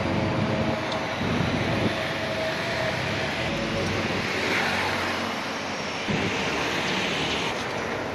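Steady road traffic noise from passing vehicles, swelling for a few seconds in the middle.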